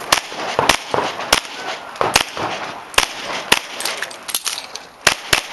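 A string of handgun shots fired during a USPSA match stage, irregularly spaced about half a second to a second apart with short pauses between groups, each shot with a short echo.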